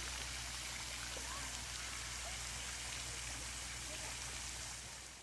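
Steady rush of splashing water, as from a garden pond fountain, dropping away just before the end.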